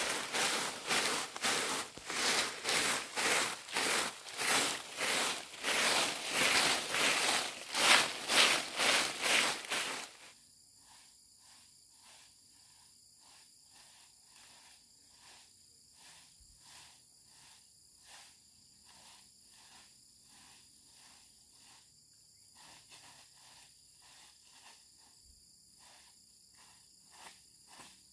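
Loud rhythmic rustling strokes, about two a second, stop abruptly about ten seconds in. After that comes a steady high chirring of crickets or other insects, with faint strokes still going underneath.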